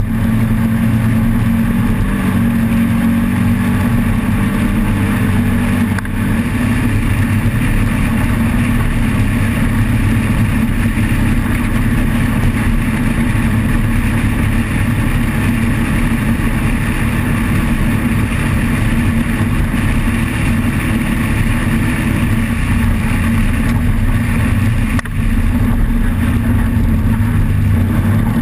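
Off-road race vehicle's engine running hard and steady under a continuous rush of noise, with two brief drops in level, about six seconds in and near the end.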